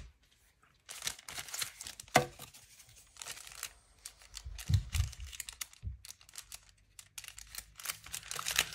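Clear plastic packaging bag crinkling as it is handled, starting about a second in, with a sharp click about two seconds in and a few soft thumps near the middle.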